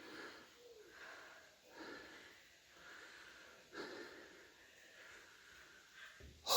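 A hiker breathing hard while climbing steep stairs: repeated heavy, rasping breaths, roughly one a second.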